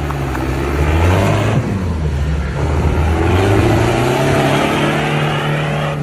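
Toyota Land Cruiser's engine revving hard on the off-road course, its pitch rising and falling, loudest about a second in and again from about three to five seconds.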